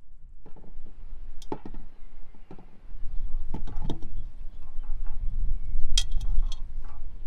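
Potatoes and eggs being set by hand into a cooking pot: scattered light knocks and clinks as they touch the pot and each other, over a low steady rumble.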